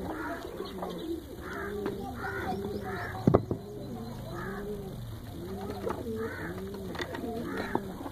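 Several domestic pigeons cooing over one another in repeated rise-and-fall calls, with a single sharp knock about three seconds in.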